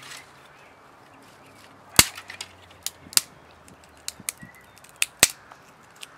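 Dry sticks snapping: a string of sharp cracks, the loudest about two seconds in and again just after five seconds.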